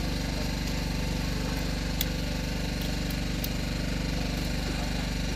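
An engine idling steadily on board a small fishing boat, an even, unchanging hum, with a light click about two seconds in.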